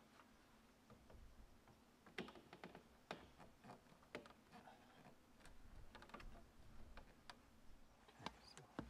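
Near silence with faint, irregular clicks and taps of plastic parts being handled as a plastic downspout screen is pushed onto a PVC pipe.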